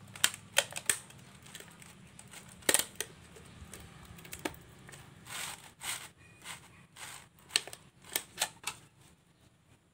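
Thin plastic mineral-water bottle packed with sand being gripped and turned in the hands: irregular sharp clicks and a brief crinkle of the plastic, some clicks in quick pairs.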